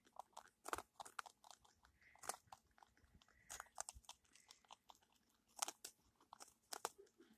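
Guinea pig chewing dry crumbled herbs close up: a faint run of small, irregular crunches, with a few sharper bites.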